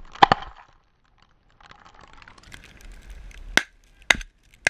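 Shotgun shots at a flushing pheasant. There is one very loud report about a quarter second in, then two more sharp reports about half a second apart near the end.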